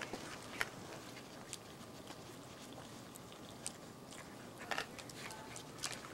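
Raccoons crunching dry dog food kibble: faint scattered crunches and clicks, with a few louder ones near the end.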